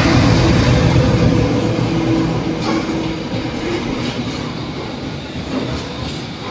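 WDG4G diesel-electric freight locomotive passing close by, its engine drone fading over the first few seconds. Then the rumble and wheel clatter of a container freight train's wagons rolling past.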